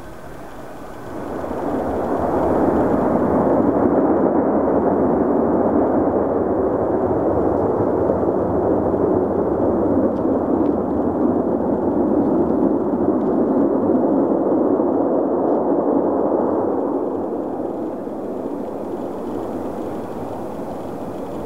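Airliner's engines rising to takeoff power about a second in, then a steady, loud roar through the takeoff roll that eases off after about 17 seconds as the aircraft departs.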